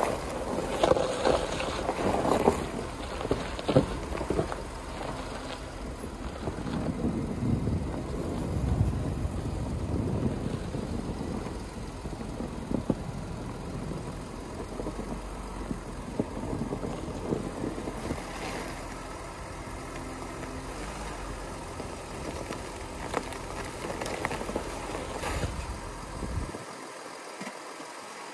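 V6 Volkswagen Amarok pickup rolling slowly over packed snow and ice on Kumho WinterCraft Ice WS31 winter tyres: the tyres crackle and crunch over the snow over a low engine rumble and wind. Near the end the low rumble cuts off suddenly.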